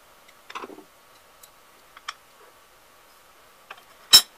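Metal parts of a Defiance hand plane clicking and clinking as the plane is taken apart: a short rattle about half a second in, a small click about two seconds in, and a sharp clack near the end as the blade is set down on the bench.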